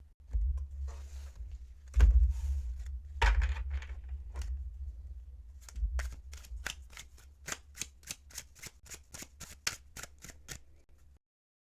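A thick-cardstock tarot deck being riffle-shuffled and bridged a small portion at a time: two brief fluttering riffles with sharp knocks of the cards, then a run of quick, evenly spaced card snaps, about four a second. A steady low hum runs underneath.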